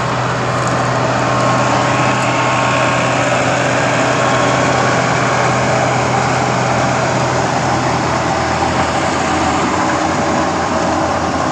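Massey Ferguson 375 tractor's diesel engine running steadily under load while it drives a PTO-powered wheat straw chopper, whose spinning rotor and belts add a continuous mechanical whirr.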